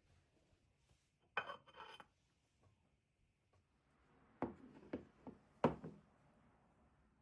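Household items being handled: two short ringing clinks, like glass or dishware touching, about a second and a half in, then a few light knocks and taps a few seconds later.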